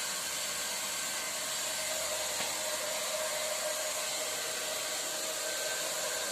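Steady machine whir with a hissy, airflow-like quality and a faint steady hum, holding even throughout.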